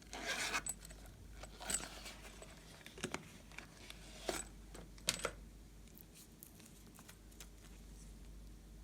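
Slime being handled: a handful of short crackling squishes, the first lasting about half a second, the rest briefer and a second or so apart, with fainter clicks after them.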